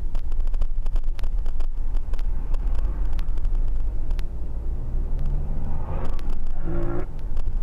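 Car on the road: a steady low rumble with many short knocks and rattles, and a brief pitched sound near the end.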